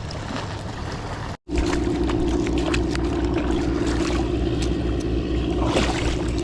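Steady motor hum, starting just after a brief dropout about a second and a half in. It has a low even drone with a faint pulse, over a background hiss.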